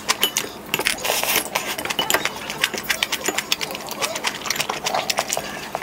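Close-miked eating of bibimbap: a fast, continuous run of wet chewing clicks and mouth smacks.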